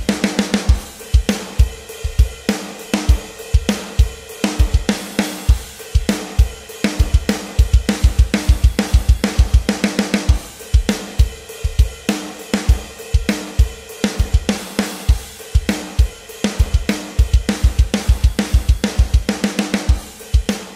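Outro music with a steady drum-kit beat: kick drum, snare and cymbals over a held tone.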